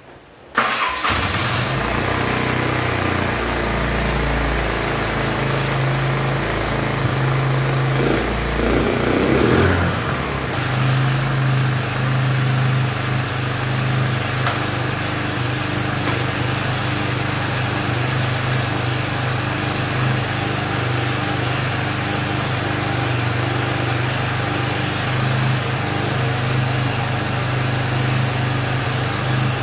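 Small engine on a homemade buggy's rear swing arm starts about half a second in and then runs steadily at idle, briefly picking up speed about a third of the way through.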